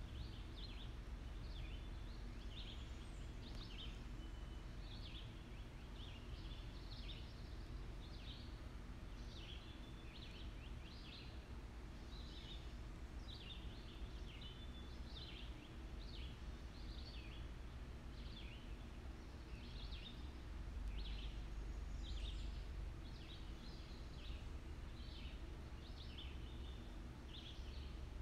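Distant jet rumble from a Boeing 787-8 Dreamliner passing high overhead, steady and swelling a little about 21 seconds in. Small birds chirp about once a second over it.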